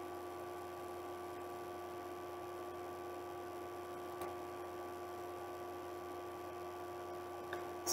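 Faint steady electrical hum made of several level tones over low hiss, with one faint click about four seconds in.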